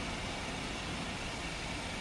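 Kia Bongo LPI truck's LPG engine idling steadily after a remote start.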